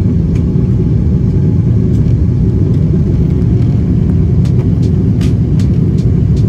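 Jet airliner cabin noise during the climb after takeoff: a steady, loud, low rumble of the engines and rushing air, with a few short clicks about four and a half to six and a half seconds in.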